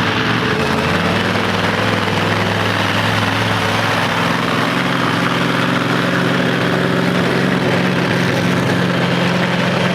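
A monster truck's engine running steadily at idle, a loud deep drone that barely changes in pitch.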